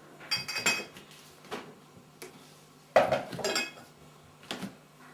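Teapot being handled and knocked, giving a few ringing clinks. There is a cluster about half a second in, the loudest clink about three seconds in, and a lighter one near the end.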